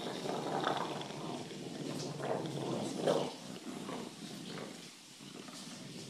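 English bulldogs growling in play while tugging on a rope toy, a rough, continuous growl that surges and eases.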